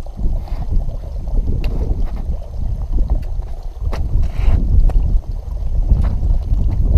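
Wind buffeting the microphone in a low rumble, with scattered sharp ticks of carbide trekking-pole tips and boots striking glacier ice.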